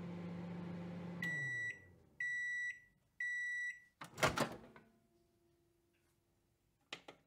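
Microwave oven running with a low hum that winds down as the timer ends. It gives three beeps about a second apart to signal it is done, then the door clunks open, with a couple of faint clicks near the end.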